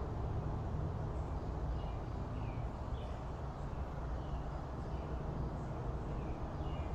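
Small birds chirping faintly now and then over a steady low background noise.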